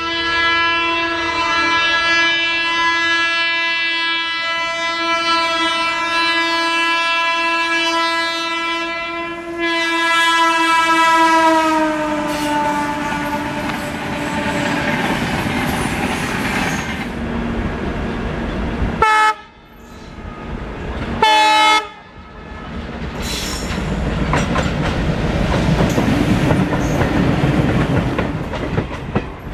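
Indian Railways locomotive horn sounding one long blast for about ten seconds, its pitch falling as the locomotive passes, then the rush and clatter of the train's coaches going by. About two-thirds of the way in come two short horn blasts, followed by more running noise of a passing train.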